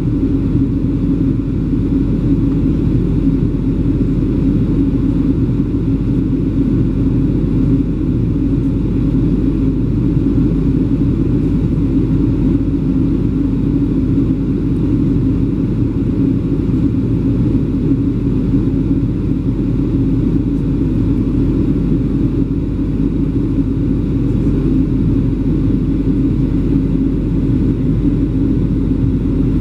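Steady low cabin noise of a Boeing 737-800 in flight, heard from a seat over the wing: the drone of its CFM56-7B turbofans mixed with the rush of air past the fuselage. It holds even, with no change in pitch or level.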